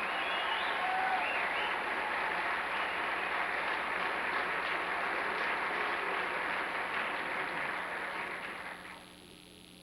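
Audience applauding, dying away about nine seconds in.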